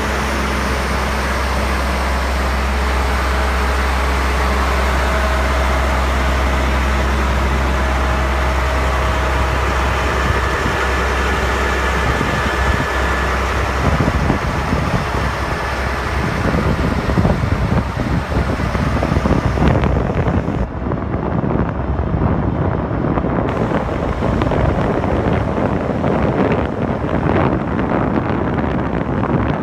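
A steady low engine hum. From about fourteen seconds in, gusty wind buffets the microphone and covers it.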